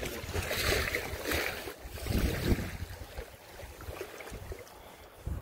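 Wind buffeting the microphone over water lapping in the shallows of a lakeshore, louder in the first half.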